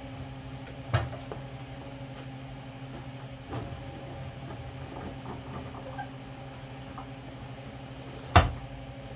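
Scissor-type motorcycle lift being let down under a dirt bike, with metallic clicks and clunks and a faint high whine in the middle. A single loud clunk comes about eight seconds in, over a steady low hum.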